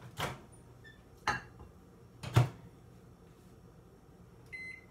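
Clunks of a microwave oven's door and a dish being handled: three sharp knocks about a second apart, the last the loudest. Near the end comes a short electronic keypad beep.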